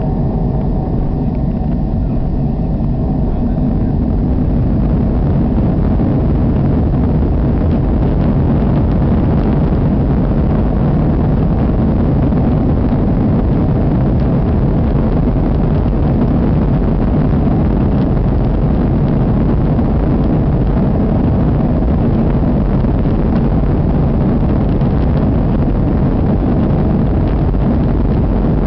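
Inside the cabin of a Boeing 737 during the takeoff roll: the engines at takeoff power and the rumble of the wheels on the runway. It is a loud, steady rushing noise, heaviest in the low end. A few steady engine tones in the first seconds give way to a slightly louder, even rush as the aircraft gathers speed.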